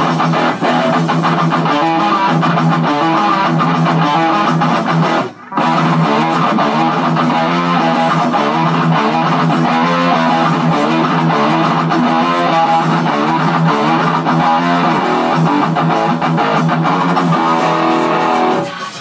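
Custom Steinberger electric guitar being played, notes changing quickly, with a brief break about five seconds in.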